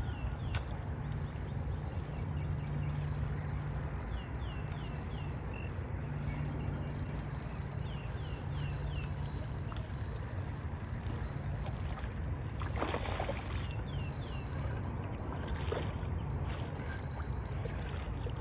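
Outdoor ambience: a steady low rumble, with a small bird calling runs of three or four short falling chirps several times, and a couple of brief rustles after the middle.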